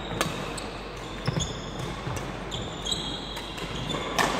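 Badminton rally: sharp racket strikes on the shuttlecock about every second or so, the loudest near the end, with short high squeaks of court shoes and footsteps on the wooden sports-hall floor.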